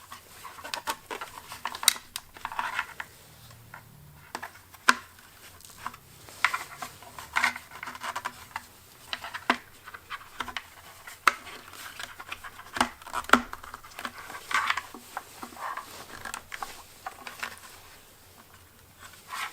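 Irregular small clicks, taps and scrapes of hands and a tool working at the plastic headlight housing of a Yamaha Raptor 700R ATV, trying to free a metal retaining clip.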